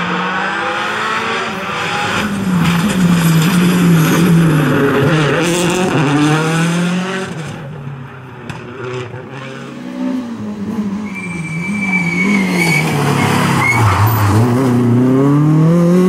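Rally car engines revving hard, the pitch climbing and dropping again and again through gear changes and lifts as the cars accelerate and brake, with a high thin tyre squeal about two-thirds of the way through.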